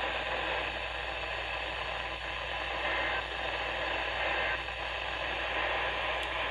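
Radio receiver hiss and static from a weak, fading station signal: a steady wash of noise with a low hum underneath, the alert broadcast lost beneath it.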